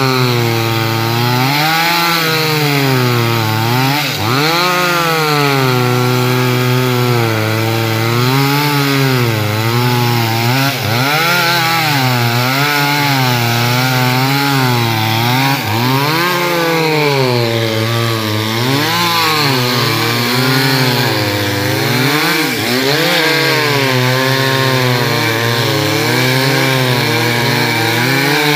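Two-stroke chainsaw cutting teak wood without a break, its engine speed rising and falling every second or two as the chain bogs in the cut and picks up again.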